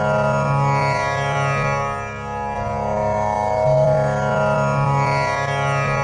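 Tanpura drone tuned to C#, its strings plucked in a slow repeating cycle, every pluck ringing on with a buzzing shimmer of overtones. The cycle comes round about every four seconds, with a slight dip in loudness about two seconds in.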